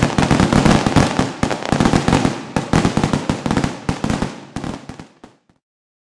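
Fireworks display: a dense, rapid barrage of bangs and crackling from aerial shells bursting. It thins out and fades away over the last couple of seconds, stopping about five and a half seconds in.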